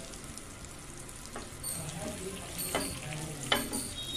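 Cumin seeds and whole spices sizzling in hot oil in a nonstick frying pan, with a few sharp clicks as a spatula stirs them.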